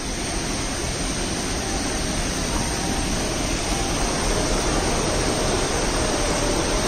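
Steady rushing of flowing stream water, with faint musical notes coming in after about two and a half seconds.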